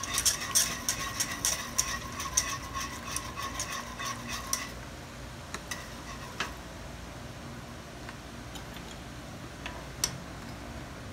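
Wire whisk beating quickly against the inside of a metal saucepan of cornstarch-thickened sauce, kept moving so it doesn't stick: a fast run of clinks that stops a little before halfway. After that come only a few single taps of a utensil against the pot.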